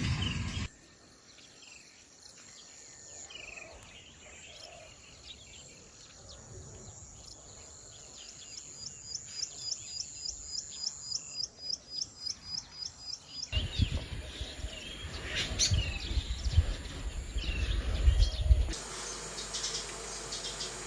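Countryside ambience with birds chirping. Part way through there is a rhythmic high-pitched insect trill of a few pulses a second, and later a stretch of low rumbling noise under more bird calls.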